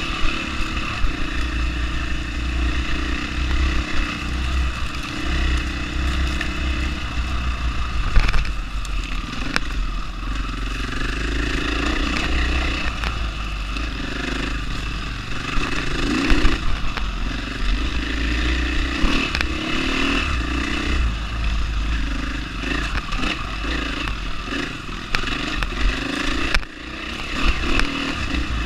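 2020 KTM 500 enduro bike's single-cylinder four-stroke engine running under load, its revs rising and falling with the throttle. Knocks and rattles come from the bike over rough ground, with a sharp knock about eight seconds in.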